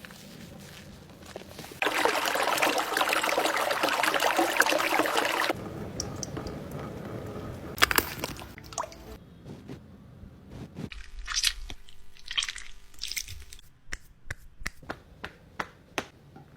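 Hands massaging oiled skin, making wet squishing and rubbing sounds. A loud, dense rubbing lasts a few seconds, then gives way to softer, sparser squishes and sharp little clicks.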